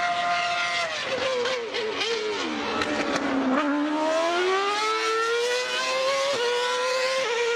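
Racing-car engine sound with a high pitch that holds steady, sinks about a second in to a low point around three and a half seconds, then climbs back up, like revs dropping and building again.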